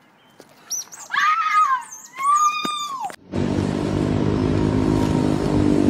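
A few high-pitched shrieks over about two and a half seconds, then from about three seconds in a steady rumble of wind on the microphone.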